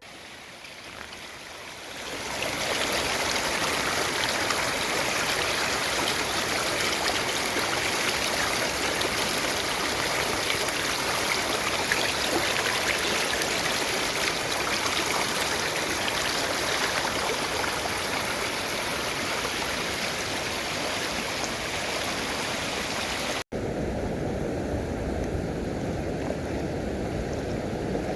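Waterfall: a steady rush of falling water that fades in over the first two seconds. About three-quarters of the way through it cuts abruptly to a deeper, lower rush.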